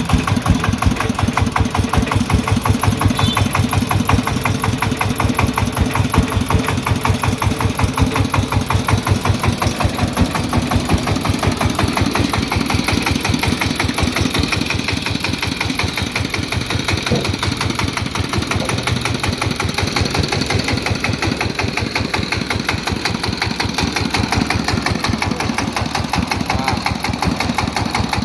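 Single-cylinder diesel engine of a công nông farm truck running steadily, with a rapid, even chugging beat.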